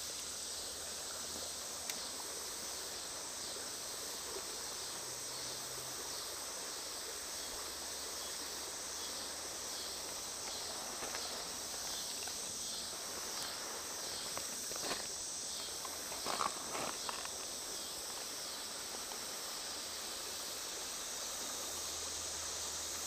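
Steady high-pitched chorus of insects, with a faint pulsing pattern, and a few faint knocks about two-thirds of the way through.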